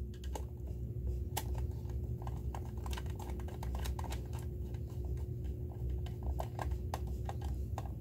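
Small, irregular clicks and taps of fingers handling stiff control wires and plastic terminal blocks on a DIN-rail panel, over a low steady hum.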